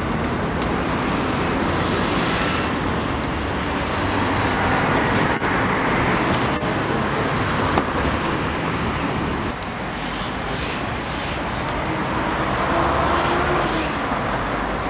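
Steady rumble of road traffic, with a faint engine tone rising and falling about three-quarters of the way through.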